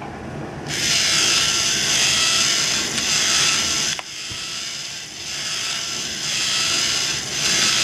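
A motor-driven Lego metering gate running, with the plastic rattle and ratcheting whir of its gears and brick-built mechanism. It starts about a second in, drops off suddenly partway through, then grows louder again near the end.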